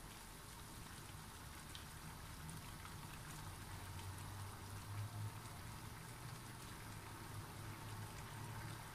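Thick sweet-and-sour sauce with chicken pieces simmering in a frying pan, a faint, steady bubbling with small pops. A low hum runs underneath and grows a little stronger partway through.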